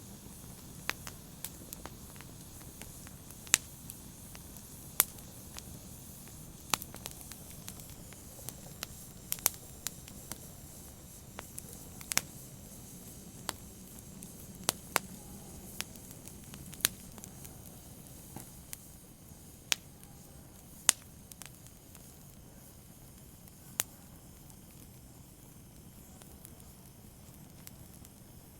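Open fire crackling: sharp, irregular pops over a soft steady hiss, the pops thinning out near the end.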